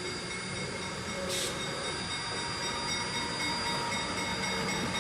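Diesel switcher locomotive drawing passenger coaches slowly closer, its engine running steadily and growing a little louder. A short hiss comes about a second and a half in.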